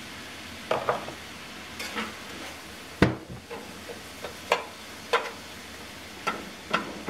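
Ground beef, diced carrots and onions sizzling in a cast-iron skillet while a slotted metal spatula stirs them, scraping and tapping against the pan about a dozen times. One heavier knock comes about three seconds in.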